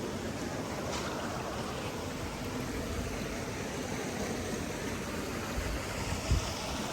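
Steady rush of moving water, with a brief low thump near the end.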